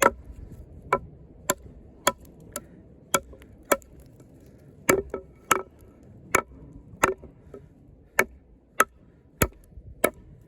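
Heavy combat knife with a thick Sleipner steel blade chopping into a block of pressure-treated hardwood, the blade biting in with sharp chops about every half second to second. There are some sixteen strikes, with a short pause near the middle.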